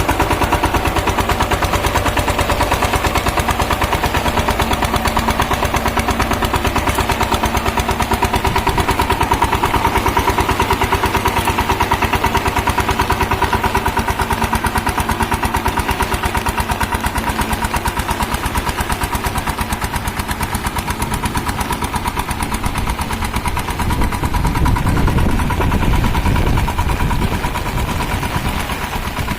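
Single-cylinder diesel engine of a Shakti power tiller running steadily with a rapid, even beat of firing strokes. It grows louder and deeper for a few seconds near the end.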